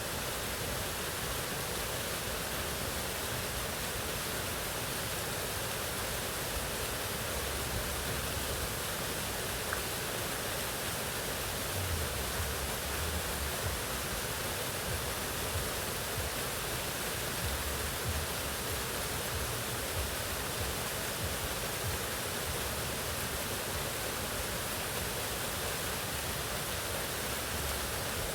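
Mountain waterfall rushing steadily, an even wash of falling water with a faint low rumble that comes and goes underneath.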